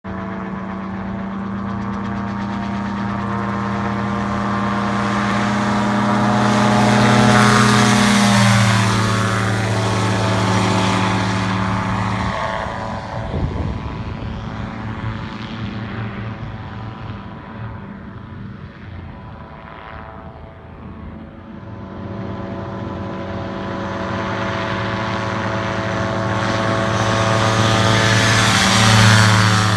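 Dominator gyroplane's engine and propeller droning as it flies low past twice. It grows louder and drops in pitch as it goes by about eight seconds in, fades as it flies off, then builds again to a close pass near the end.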